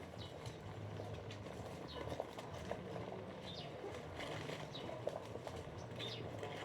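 Faint ambient sound: short, high chirps of small birds every second or so, a few light clicks, and a low steady hum underneath.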